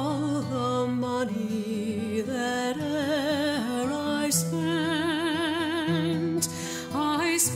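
Background music: a sung melody with wide vibrato on long held notes over steady low notes.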